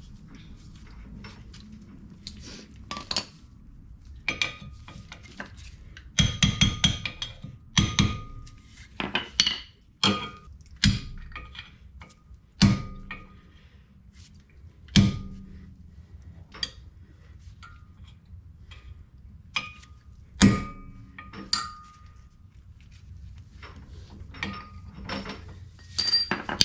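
Hand tools and steel suspension parts clinking and knocking together in an irregular series of sharp metallic strikes, some ringing briefly, over a low background hum.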